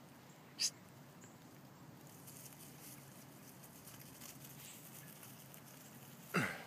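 Faint pattering and rustling of a Bullnese puppy moving through grass and dry leaves. A short high squeak comes about half a second in, and near the end there is a brief cry that falls in pitch, the loudest sound.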